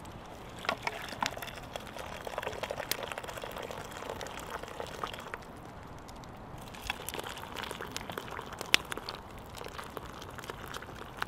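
Scattered clicks and crackles as a wooden stick stirs soup in an aluminium mess tin over a campfire, with a lull in the middle. Near the end, water pours from a kettle.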